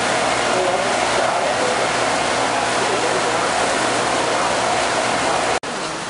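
Steady loud rushing and rumbling of a large horizontal drum machine running in a barn, with a faint steady hum. It cuts off abruptly near the end, leaving a quieter steady background noise.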